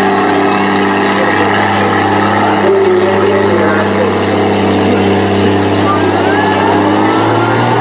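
Demolition derby vehicle engine running hard at a steady pitch, a sustained drone that shifts near the end.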